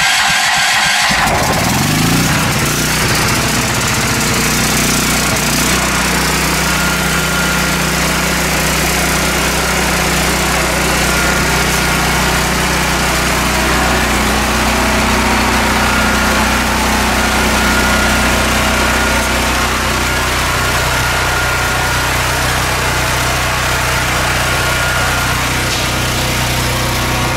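Gasoline portable generator started with its key: the electric starter cranks for about a second, then the engine catches, revs up quickly and settles into steady running at its governed speed.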